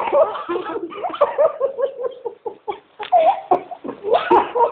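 People laughing and giggling, in short bursts with a brief lull in the middle.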